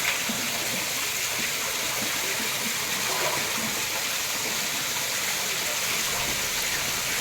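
Steady rush of running water, with indistinct voices faintly beneath it.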